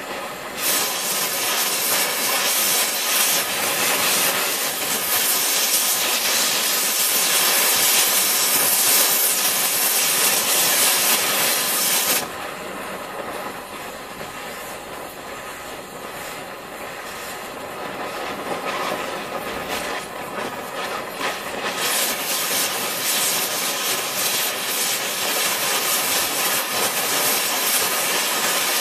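MagneGas2 fuel-gas torch flame running with a steady hissing rush as it heats a piece of tungsten. About twelve seconds in it turns noticeably quieter and less hissy, and about ten seconds later it comes back up to full strength.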